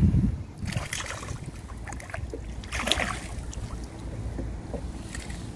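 Wind buffeting the microphone, with splashing from a small hooked bass thrashing at the water's surface as it is reeled in. The splashes come in short bursts about one and three seconds in.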